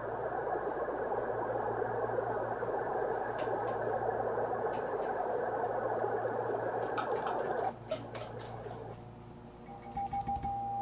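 Receiver hiss from a 23 cm moonbounce station, a steady rush of band noise, that cuts off with a few clicks about three-quarters of the way through as the station switches over to transmit. A steady tone comes in near the end, while the amplifier is keyed at 800 watts.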